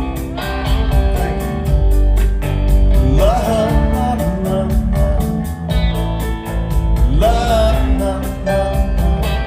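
Live rock band music: an electric guitar and band playing, with a male voice singing phrases of the melody.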